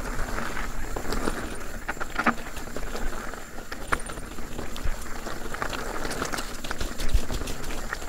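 Steel hardtail mountain bike riding fast on dirt singletrack: tyres rolling and crunching over packed dirt, dry leaves and small rocks, with a stream of clicks and rattles from the bike and a sharper knock about seven seconds in.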